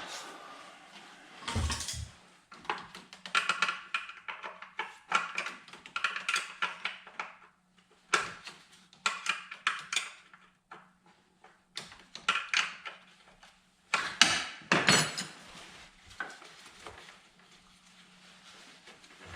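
Metal hand tools clinking and clicking against engine parts in short, irregular bursts as intake manifold bolts are worked loose; it goes quieter for the last few seconds.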